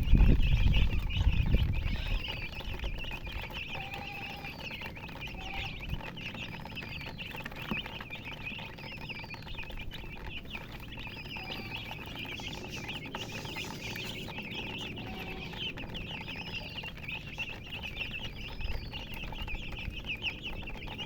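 A group of chicks peeping constantly in many overlapping high chirps, with a louder rising-and-falling peep repeating about once a second and a few short, lower clucks from a hen. A loud low rumble fades out over the first two seconds.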